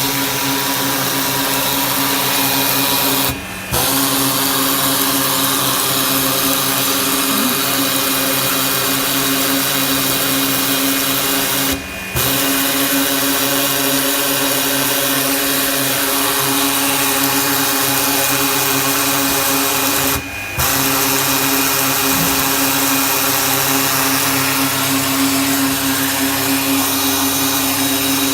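Ball surface peen sanding machine running in its automatic cycle: a steady motor drone with a hiss. It cuts out briefly about every eight seconds, matching the 8-second sanding time set for each position.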